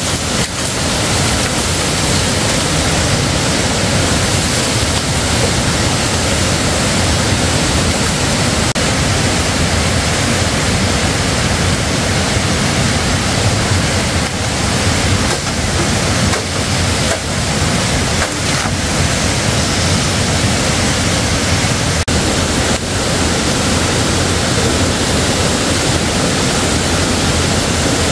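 Steady, loud rushing noise with a few faint knocks.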